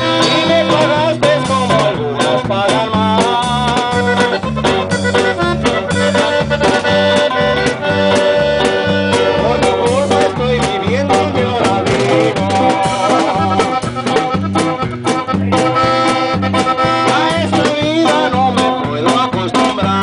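Norteño band playing an instrumental passage: a diatonic button accordion carrying the tune over bajo sexto strumming, electric bass and drums keeping a steady beat.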